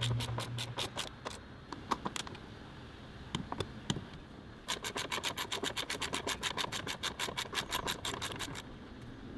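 Hand ratchet clicking rapidly, about nine clicks a second. It comes in two runs, one stopping about a second in and a longer one from about halfway to near the end, with a few single clicks between.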